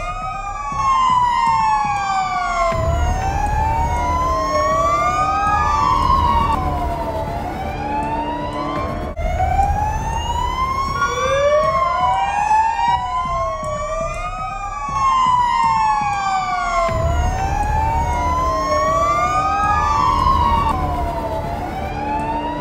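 Fire truck siren wailing in repeated rising and falling sweeps, one every two to three seconds, with two siren tones crossing each other. A low vehicle rumble runs under it and grows louder at times.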